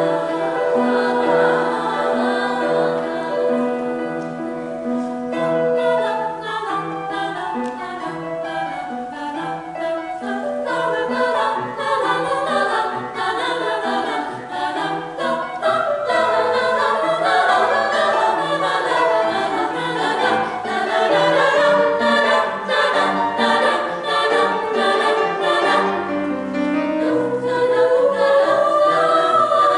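A choir singing an aleatoric choral piece. It opens on held sung chords, then from about six seconds in breaks into many overlapping, shifting vocal lines with frequent short clicks scattered through them.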